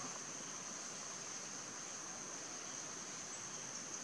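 Steady high-pitched insect drone over a faint hiss.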